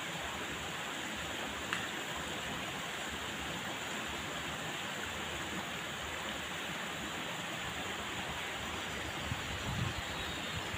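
Steady, even rush of flowing water. Near the end come a few soft, low splashes as a wet cast net is drawn up out of the shallows.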